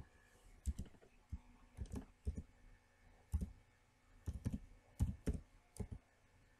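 Computer keyboard being typed on: about a dozen sharp, irregularly spaced keystrokes as a short word is entered.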